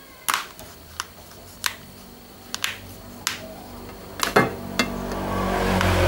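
Sharp plastic clicks and snaps, about nine over the first five seconds, as the plastic back cover of an OPPO A1K phone is pried loose from the SIM-tray slot and its clips let go. Near the end a low engine drone swells in the background.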